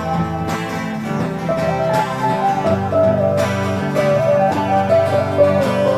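Instrumental background music, a melody stepping from note to note over steady lower notes.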